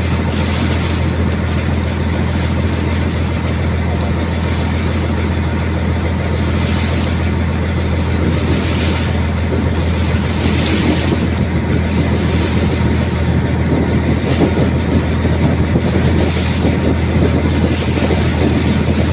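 A boat engine drones steadily over a constant rush of water and wind noise, growing slightly louder in the second half.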